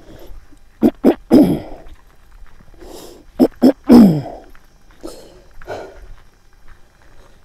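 A man coughing and clearing his throat: two quick coughs then a longer throat-clear that drops in pitch, about a second in, the same again about two and a half seconds later, then a couple of fainter coughs.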